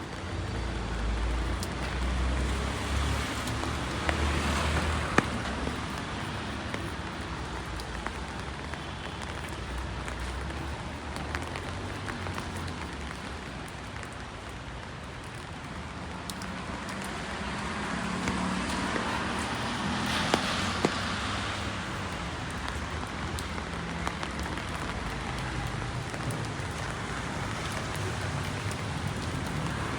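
Steady rain falling on a city street, with sharp ticks of drops close by. Passing vehicles hiss on the wet road, swelling twice: about four seconds in and again about twenty seconds in.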